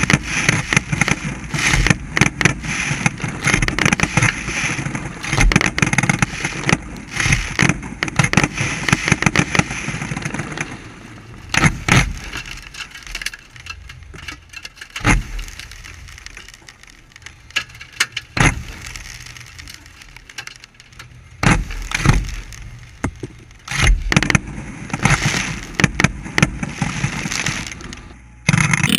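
Fireworks firing from a barge at close range: a dense run of cracks and pops for about the first ten seconds, then single sharp bangs every two to three seconds.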